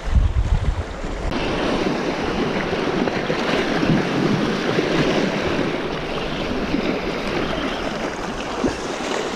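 Sea waves washing against the rocks, a steady rushing that swells about a second in, with wind buffeting the microphone at the start.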